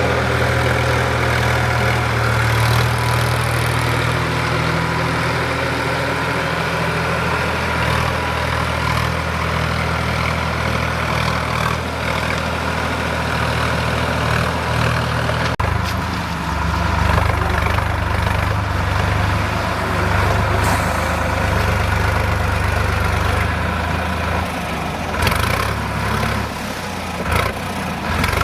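Sonalika DI 745 III tractor's three-cylinder diesel engine running steadily, its note changing abruptly about halfway through and becoming uneven near the end.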